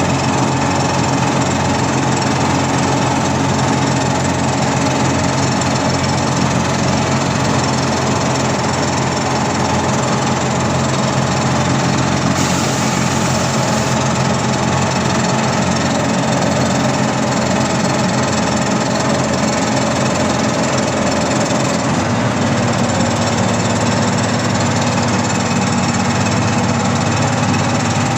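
Kirovets K-701 tractor's diesel engine running steadily with a deep, even drone; the engine note shifts a little about three-quarters of the way through.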